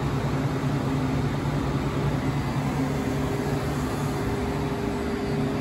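GMTK Accuracer HR1200 turn-mill running with its chuck spinning and coolant spraying: a steady hum with a few low tones under an even hiss.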